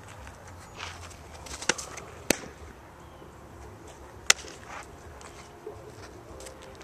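A softball smacking into leather gloves: two sharp pops about two seconds in as the change-up reaches the catcher's mitt, and another a little after four seconds in as the return throw is caught in the pitcher's glove.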